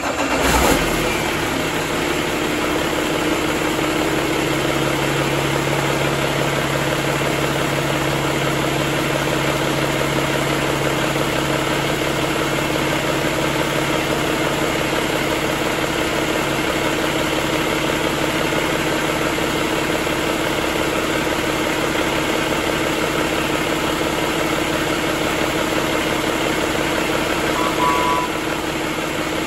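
Cummins ISX15 inline-six diesel engine on a test stand catching at the start and settling into a steady idle.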